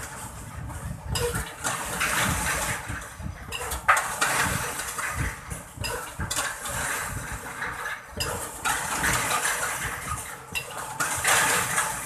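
Irregular metallic clanks and knocks from a crawler-mounted pile driving rig, about one or two a second, the sharpest about four seconds in.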